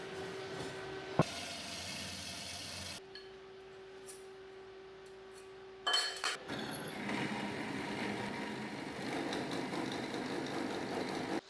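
Metalworking shop sounds in several short sections: a steady hum broken by a sharp click about a second in, then a loud ringing clink of steel about six seconds in, followed by a steady hissing tool noise.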